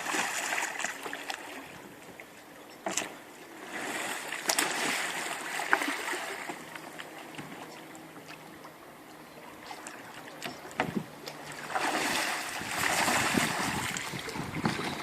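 Water splashing and sloshing around a kayak, coming in surges with a few sharp knocks.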